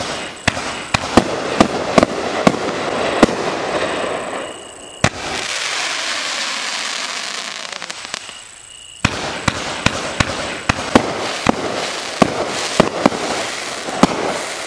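A 500 g, 30-shot consumer fireworks cake firing: a rapid run of launch thumps and bursts. After about five seconds the bangs give way to a few seconds of steady hiss, and the shots resume near the nine-second mark.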